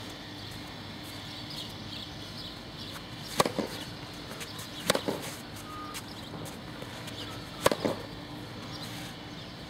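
Tennis ball struck with a racket on a hard court: three sharp pops a few seconds apart, each followed by a quick second tap, over a faint steady hum.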